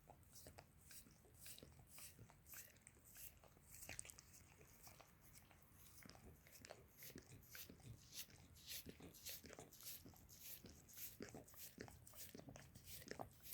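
A mixed-breed dog licking a person's foot close to the microphone: faint, irregular wet clicks and smacks of tongue on skin, a few each second.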